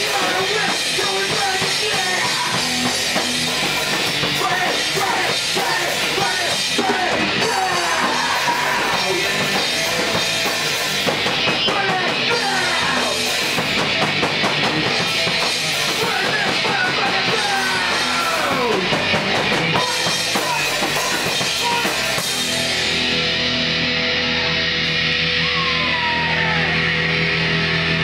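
Loud live rock band: pounding drum kit and cymbals under amplified instruments, with a singer's voice on the microphone. About 22 seconds in, the drums and cymbals stop and held amplified notes ring on.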